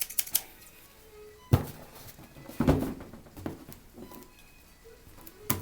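Cardboard shipping box being opened and handled: scattered clicks, a sharp knock about a second and a half in, and a brief scraping rustle a little later.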